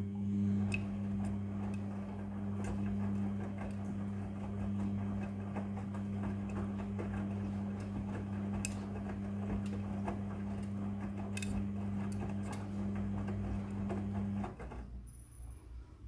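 Midea front-loading washing machine tumbling a wash load: a steady motor hum under the rustle and knocks of wet clothes turning in the drum. About fourteen seconds in the motor stops abruptly, the rest between drum rotations in the wash cycle, leaving only faint ticks.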